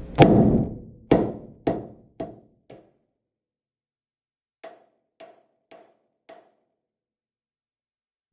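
Hammer blows on the old steel leaf-spring hanger on a Chevrolet C10 frame, knocking it loose: five strikes, then four more after a short pause, each with a brief metallic ring. The first blow is the loudest.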